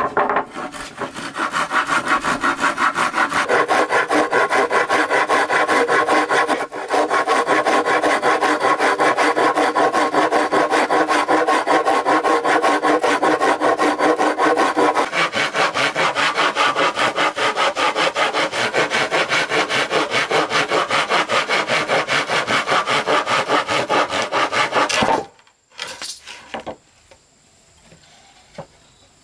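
Saw cutting through wood in rapid, even back-and-forth strokes, with a brief pause about seven seconds in. The sawing stops abruptly a few seconds before the end.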